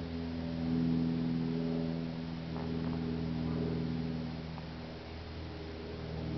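Steady hum made of several constant low tones, like a running machine, with a few faint clicks.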